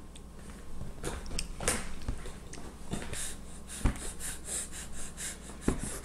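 A baby making short, breathy snorts and huffs through her nose and mouth while chewing and grimacing over her food, in a quick run in the second half. Two sharp taps are heard, about four seconds in and near the end.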